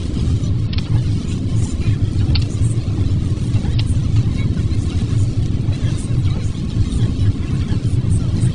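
Steady low road and engine rumble of a car being driven, heard inside the cabin, with a few faint ticks.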